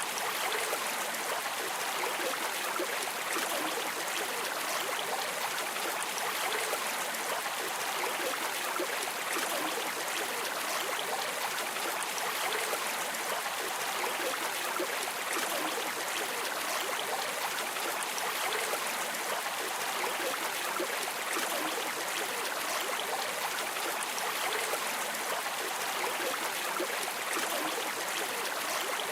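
River or stream water running and babbling, steady and unbroken.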